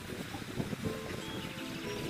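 Background music, a melody of held notes, over a steady rush of surf and wind.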